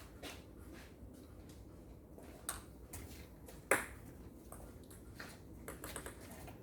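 Table tennis ball clicking off the bats and the table during a rally: irregular sharp hits, the loudest about three and a half seconds in, then coming quicker near the end.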